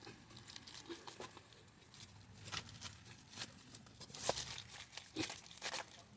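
Faint, scattered clicks and knocks of a torque wrench and socket being worked between the wheel hub bearing's mounting bolts, the loudest a little past four seconds in.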